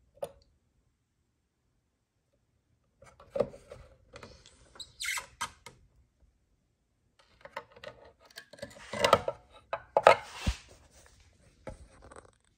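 Irregular handling noises: knocks, clicks and rubbing of objects being moved about, in short clusters with quiet gaps between, the busiest stretch just past the middle.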